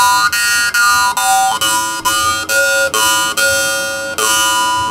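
Handmade Shaun Jones jaw harp being played, its blued steel tongue plucked about twice a second. Each pluck rings on, and the strongest overtone steps between notes, making a twanging melody.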